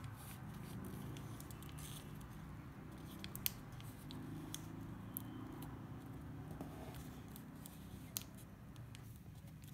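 Faint rustling and crinkling of origami paper being folded and creased by hand, with scattered small crackles, the sharpest about three and a half and eight seconds in.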